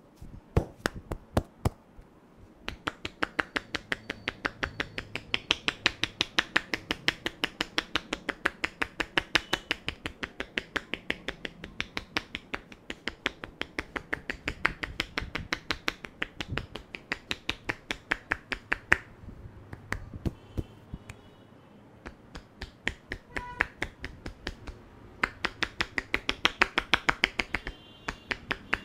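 A barber's hands making a fast, even run of sharp clicks, about five a second, during a head massage. The run thins out for a few seconds about two-thirds through, then comes back in a last burst.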